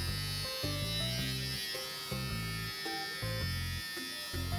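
Electric pet hair clippers running with a steady buzz, over background music.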